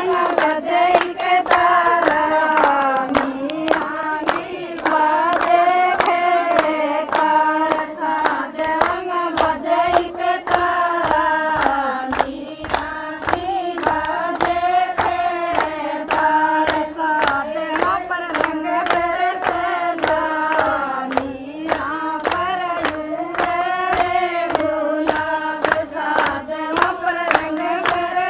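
Women singing a Rajasthani folk song together, with steady hand clapping keeping time at about two claps a second.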